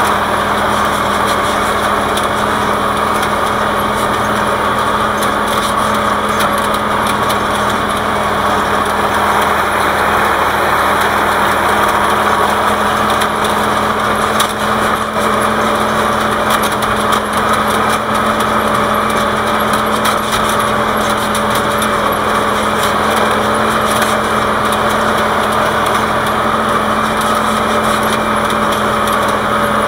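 Tractor diesel engine running steadily under load while pulling a harrow: a constant, even drone with no change in engine speed.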